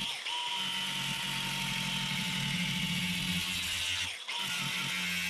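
Angle grinder running steadily as it cuts into the container's fibreglass outer skin, a constant high whine. It eases off and dips briefly in pitch about four seconds in.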